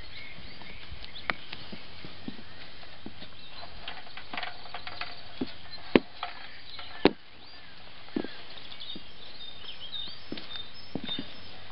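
Outdoor background with birds chirping and scattered small knocks and clicks, topped by two sharp knocks about six and seven seconds in.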